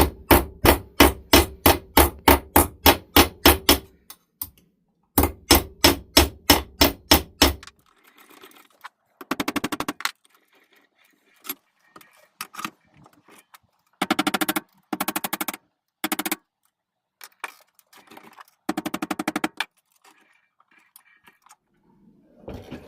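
Hammer blows on a metal furniture bracket, flattening it out: a fast run of about four strikes a second for roughly four seconds, then a second run after a short pause. Later come several shorter bursts of a rapid buzzing rattle.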